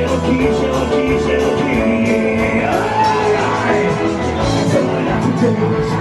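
Amateur rock band playing live: electric guitar, bass guitar and drums.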